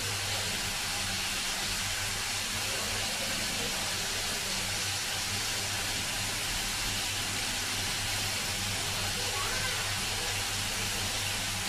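Marinated lamb chops sizzling steadily in a frying pan over a gas flame, with a steady low hum underneath.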